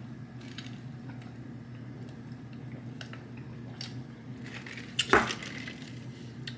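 A paper fountain-drink cup set down on the table with one sharp knock about five seconds in, after a stretch of quiet straw-sipping that gives only a few faint clicks over a low, steady room hum.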